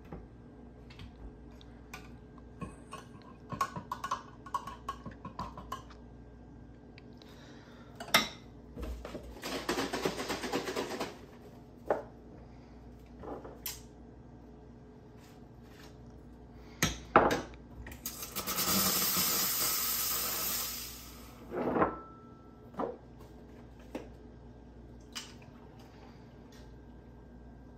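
Clinks and knocks of cups, metal pitcher and espresso tools being handled at an espresso machine, with two bursts of rushing noise of about two seconds each. The second burst, about two-thirds of the way in, is the louder and brighter hiss.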